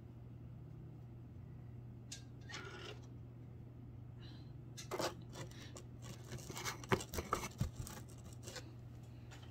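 Small handling noises: fingernails and fingertips clicking and scraping against a plastic jar of nail dip powder on a tabletop, a quick run of sharp clicks loudest about seven seconds in, over a steady low hum.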